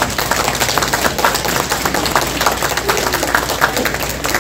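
Audience applauding, a dense patter of many hands clapping at once.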